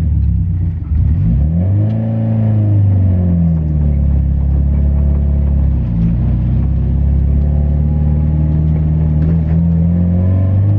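2002 Subaru WRX's turbocharged 2-litre engine with a straight-pipe exhaust, driven hard: the revs dip briefly about a second in, swell and fall away, then climb slowly and steadily under load through the last few seconds.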